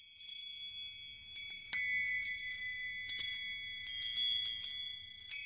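Wind chimes ringing: a scatter of light, irregular strikes, each leaving high clear tones that hang on and overlap.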